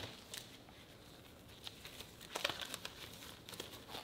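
Thin disposable plastic gloves being pulled on over one another: faint crinkling with a few short crackles and snaps, bunched a little past the middle.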